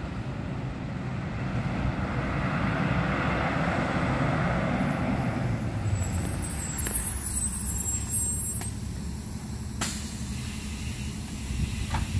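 City transit bus's diesel engine running as the bus approaches and pulls up to the stop, the rumble swelling then easing as it slows. A high brake squeal follows as it comes to a halt, and a short sharp burst of air from the air brakes comes near the end.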